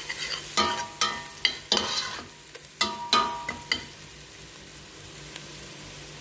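A spatula scraping and knocking against a stainless steel pot while stirring onions, garlic, ginger and ground spices frying in oil, each knock ringing briefly off the pot. The stirring stops about four seconds in, leaving a steady sizzle.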